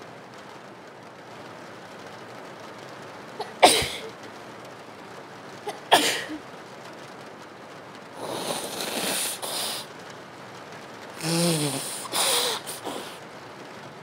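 A young woman with a cold sneezes twice, sharply, about two seconds apart. Then she blows her nose in a few long blows, over a steady sound of rain.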